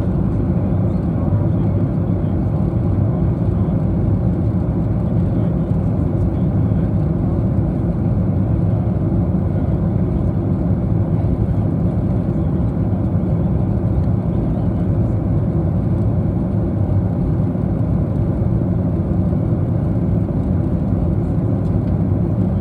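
Steady low roar inside the cabin of a WestJet Boeing 737 in flight: engine and airflow noise heard from a window seat.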